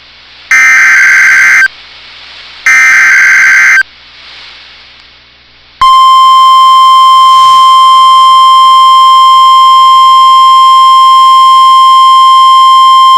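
NOAA Weather Radio Emergency Alert System signal: two roughly one-second bursts of SAME digital header data, then about six seconds in the steady 1050 Hz warning alarm tone starts and holds, announcing a new severe thunderstorm warning.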